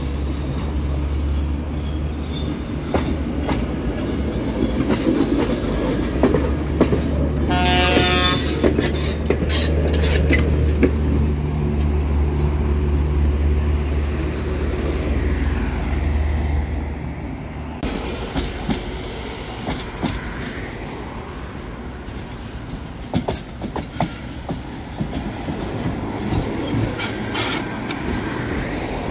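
71-605 (KTM-5) trams running on street track: a steady low motor drone and wheel rumble for the first half, with a brief high-pitched tone about eight seconds in. It then drops to quieter rolling broken by scattered sharp clicks.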